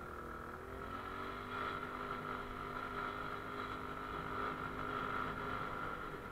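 Motorcycle engine running as the bike rides along, its pitch shifting with the throttle early on and getting louder about a second in, with a steady high whine over it.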